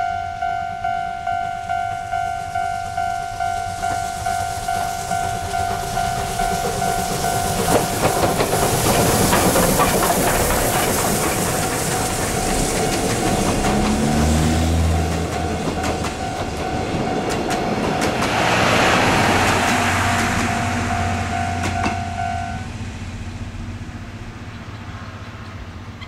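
Japanese level-crossing warning bell ringing in rapid, even strokes while the SL Paleo Express passes: the C58 363 steam locomotive and its passenger coaches, wheels rumbling and clicking over the rail joints. The bell stops about three-quarters of the way through, once the train is clear, and the train noise fades away.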